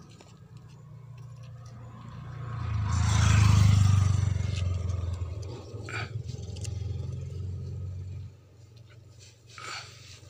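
A motor vehicle's engine hum that swells to its loudest about three to four seconds in, then eases and cuts off suddenly about eight seconds in. Short scrapes come twice, about six seconds in and near the end.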